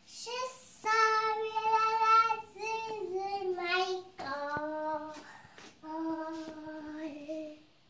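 A young girl singing alone, several phrases of long held notes with short breaks between them.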